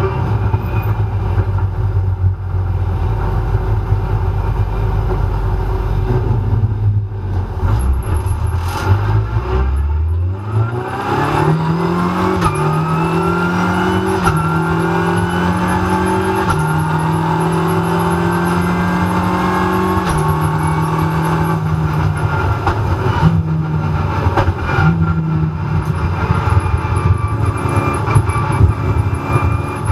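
Onboard sound of a Renault Clio Cup race car's turbocharged four-cylinder engine, heard from inside the cabin: a low rumble for about the first ten seconds, then the engine note climbs sharply under acceleration and is held high through several gear changes.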